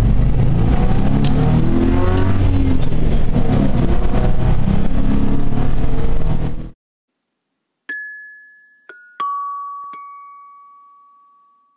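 Engine and road noise heard from inside the cab of a VW Type 2 bus running a swapped-in Subaru EJ22 flat-four, its pitch rising and falling, cutting off suddenly about seven seconds in. Then a few glockenspiel-like chime notes, struck one after another and stepping down in pitch, the last ringing out long.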